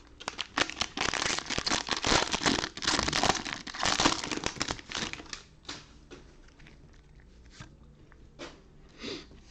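A trading card pack wrapper being torn open and crinkled for about five seconds, then a few quieter rustles and clicks as the cards are handled.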